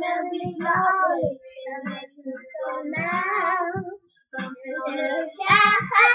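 Young girls singing a pop song with high child voices; the singing breaks off briefly about four seconds in.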